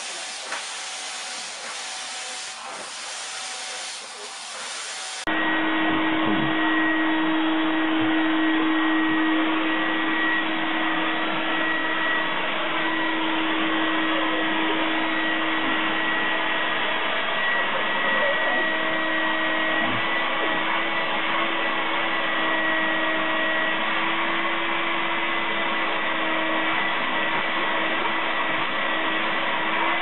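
A steady rushing hiss, then about five seconds in an abrupt change to a louder vacuum cleaner running steadily, its motor giving a constant hum and whine.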